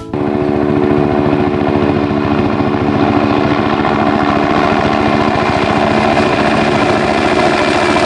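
A vehicle engine sound that cuts in suddenly and runs steadily at a fast, even pulse.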